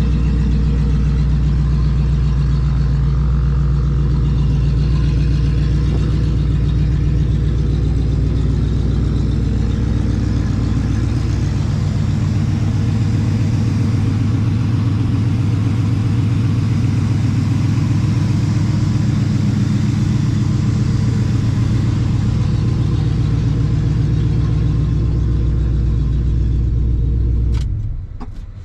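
1972 Oldsmobile Cutlass Supreme's engine idling steadily, then cutting off sharply near the end.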